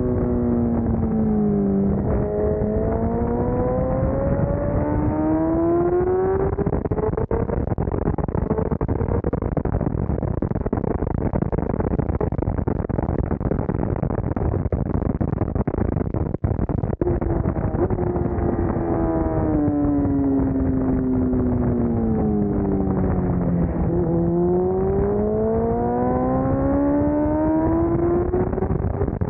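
Sport motorcycle engine at racing speed. The revs drop under braking in the first couple of seconds and climb steadily as it accelerates out of the corner. A long full-throttle stretch follows, mostly rushing noise, then the revs fall for several seconds into the next corner and rise again near the end. The sound is muffled and dull, heavily noise-reduced.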